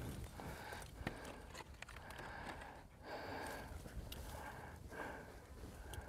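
Wind buffeting the microphone outdoors, a low rumble that comes in uneven gusts, with scattered small clicks and rustles.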